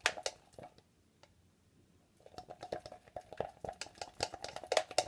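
Stir stick mixing gold-tinted glitter glue in a plastic cup: a few quick clicks and squelches, a pause about a second in, then rapid steady stirring, the stick clicking against the cup walls, from about two seconds in.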